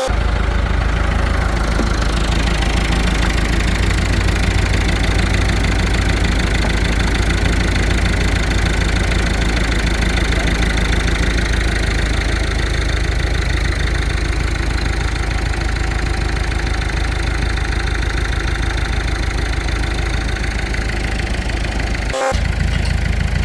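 Diesel engine of a Kubota U55-4 excavator running steadily at idle, with a brief break near the end.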